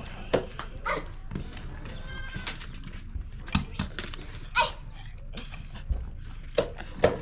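A goat bleating, with scattered short knocks around it.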